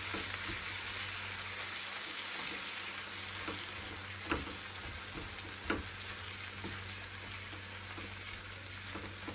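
Chopped tomatoes, chillies and shallots sizzling in oil in a frying pan as a spatula stirs them, a steady hiss with a few short clicks of the spatula against the pan, the sharpest about halfway through.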